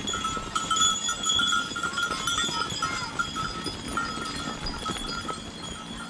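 Bells tied on a passing flock of goats, ringing and jangling without a break as the animals walk by.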